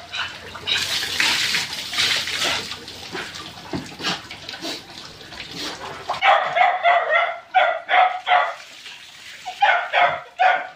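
Water poured from a dipper splashing over a dog being bathed, then a dog barking in quick runs of short, high barks, starting about six seconds in and again near the end.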